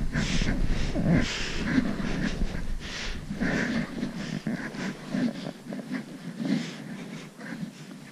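Footsteps crunching in snow at a steady walking pace, with a hiker's hard breathing; the steps grow softer in the second half.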